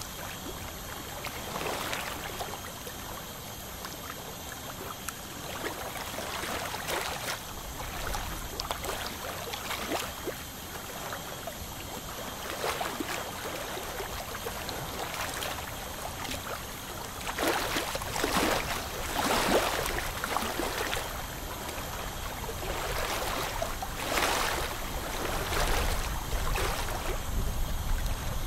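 Ultrasonic dental scaler working along lower front teeth to strip black smoker's tartar, its water spray hissing steadily with wet sucking and splashing from the suction. The hiss swells and gets splashier in two stretches, past the middle and near the end.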